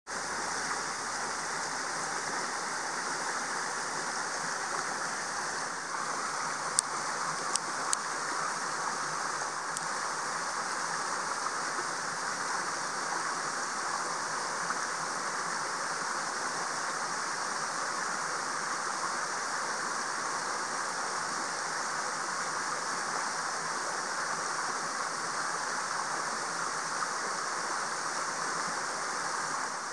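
Steady outdoor background hiss with no distinct events, apart from a few faint clicks between about seven and ten seconds in.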